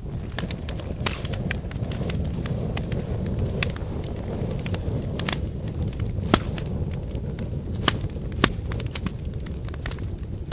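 Campfire of burning firewood crackling, with frequent sharp pops over a steady low rush of flame. Three louder pops come in the second half.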